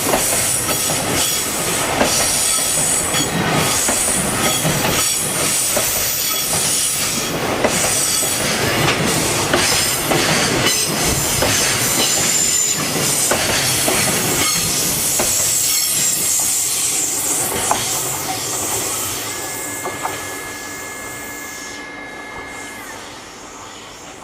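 Koki container wagons of a freight train rolling past, wheels clattering over rail joints with some squeal. The sound fades away over the last several seconds as the end of the train goes by. A steady high squeal sounds for a few seconds near the end.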